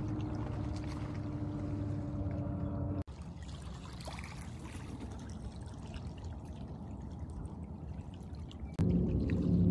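Small waves lapping and trickling against a pebbly lake shore. In the first three seconds a steady low hum of several held tones is louder, and a louder low hum cuts in suddenly near the end.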